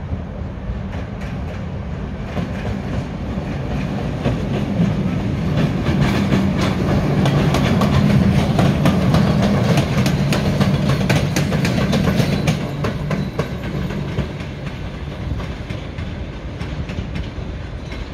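A train passing by on the rails, its wheels clacking over the rail joints. It grows louder to a peak in the middle and then fades away.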